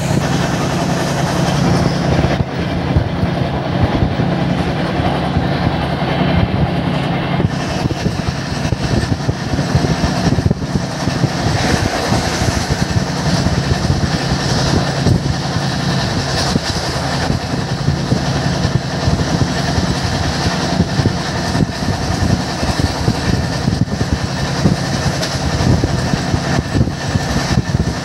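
Indian Railways express train running at speed, heard from inside the coach: a loud, steady rumble of wheels on the track with a constant noise over it.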